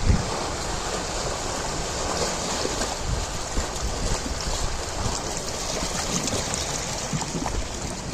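Ocean surf: a steady rush of waves breaking and washing in, with short low thumps now and then.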